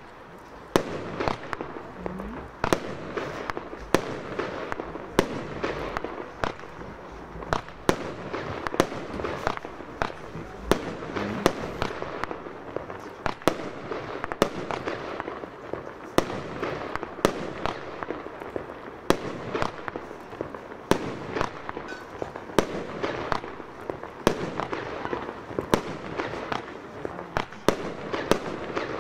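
Röder 'Gold Blume' fireworks battery firing shot after shot, starting about half a second in. Sharp bangs come about one to two times a second, with a continuous rushing noise between them.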